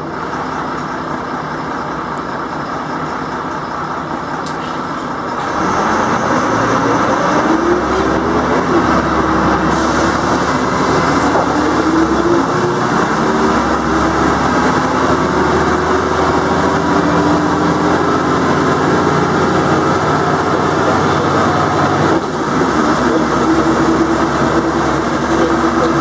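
Jelcz 120MM/2 city bus heard from inside the passenger cabin. About five seconds in it pulls away: the engine and drivetrain grow louder with a rising whine, then settle into a steady pitched drone. The drone briefly dips near the end before carrying on.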